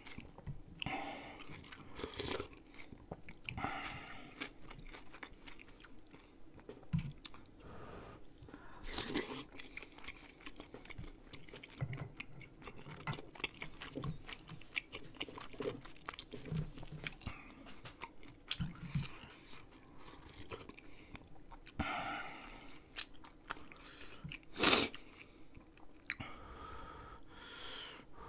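Close-miked chewing and eating of rice cake and dumpling soup: wet mouth clicks and chewing throughout, with a few louder bursts and one sharp, loudest sound about 25 seconds in.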